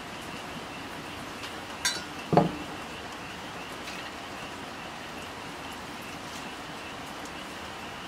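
Steady rain falling, with a light tap and then a louder clink of a glass whisky bottle against a copper mug about two seconds in, as whisky is poured.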